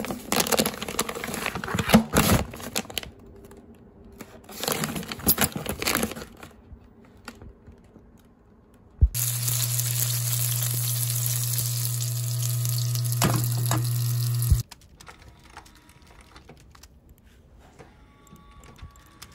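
Plastic packaging crinkling as frozen japchae dumplings are handled, then dumplings sizzling in oil in a frying pan for about five seconds from about nine seconds in, a steady hiss over a low hum that cuts off abruptly.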